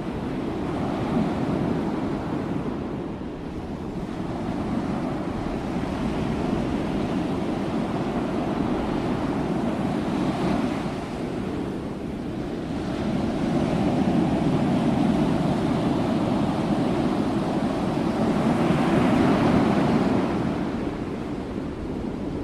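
Sea waves surging and washing on the shore as a continuous surf, swelling louder about ten seconds in and again over a longer stretch from about thirteen to twenty seconds.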